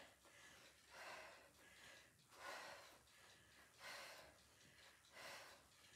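A woman breathing hard from exercise: faint, breathy exhales about every second and a half as she does side-to-side heel-reach crunches on the mat.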